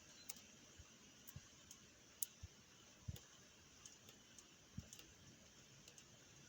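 Scattered raindrops landing: faint, irregular ticks with a few soft, dull thuds among them.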